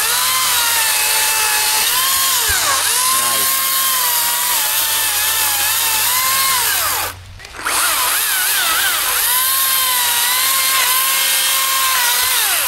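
Power saw cutting through a tree branch: a high motor whine that keeps sagging in pitch as the blade bites into the wood. It stops for about half a second about seven seconds in, then runs again.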